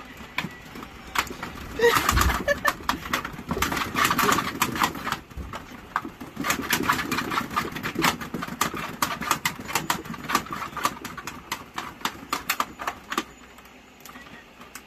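Cat running in a wooden cat exercise wheel: rapid, irregular clattering and knocking as the wheel turns under its paws, dying away near the end as the cat comes to a stop.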